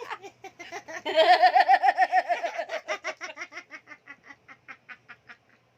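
A person laughing: a long run of quick, pitched laugh pulses, loudest about a second in and then gradually fading away.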